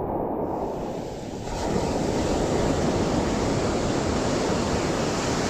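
Steady rush of surf on a beach, with wind on the microphone; it grows louder and brighter about one and a half seconds in.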